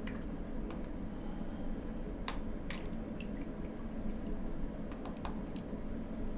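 Scattered faint clicks and taps of painting supplies being handled on a table, two of them clearer about two and a half seconds in, over a steady low room hum.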